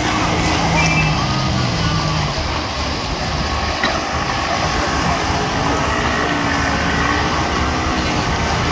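Steady engine rumble with a crowd murmuring, and a short high beep about a second in.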